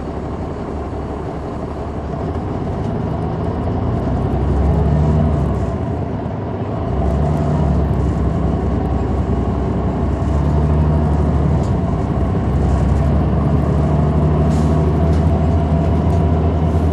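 Caterpillar C9 ACERT diesel engine of a 2003 Neoplan AN459 articulated bus, heard from on board while running under way. Its low hum swells about four seconds in, dips briefly around six seconds, then comes back up and holds steady.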